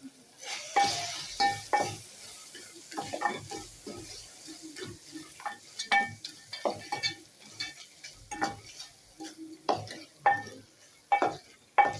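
A metal spoon stirring food in a metal cooking pot: a string of ringing clinks against the pot, about one a second, over a faint sizzle of frying.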